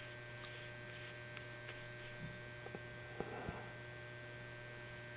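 Steady low electrical mains hum with a few faint overtones. Over it come a few faint ticks and, about three seconds in, a soft brief rustle from a watercolor brush dabbing paint onto paper.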